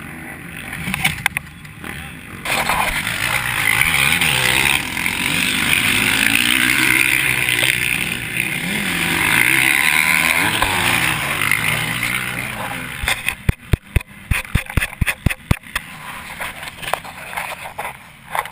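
A KTM SX350F's single-cylinder four-stroke engine revving hard, its pitch rising and falling, with rushing noise over it. About thirteen seconds in, the engine drops back and a quick series of sharp knocks and clicks follows.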